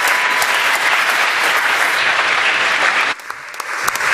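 Audience applauding, a dense steady clatter of many hands clapping. About three seconds in it drops off suddenly, then comes back thinner and builds up again.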